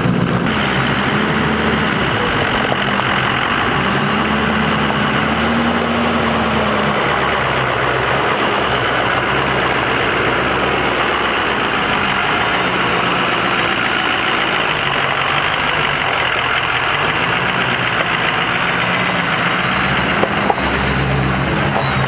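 A vehicle engine idling steadily under a constant rushing noise.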